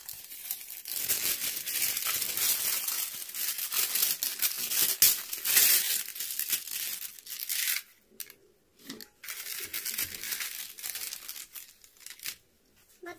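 Baking parchment paper being handled, crinkling and rustling loudly with tearing sounds, then quieter rustles for the last few seconds as the butter on its parchment is set on the scale.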